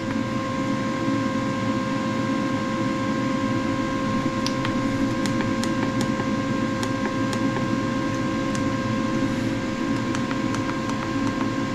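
Steady drone of countertop cooker fans, with a constant whine over a low hum; an 11-in-1 multi-cooker roasting a chicken is called noisy. From about four seconds in comes a run of light clicks as buttons on a Ninja dual-zone air fryer's control panel are pressed.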